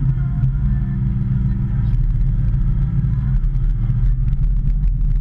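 Hitachi ZX210 excavator's diesel engine running steadily under working load, a deep even drone, with a scatter of light clicks and knocks past the middle.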